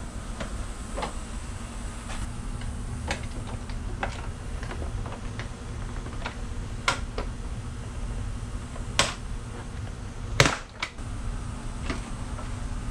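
Scattered plastic clicks and knocks from a Hyundai Palisade's plastic grille assembly being handled and worked at its edges. Faint, irregular ticks at first, then a few sharper snaps in the second half, the loudest about three quarters of the way through.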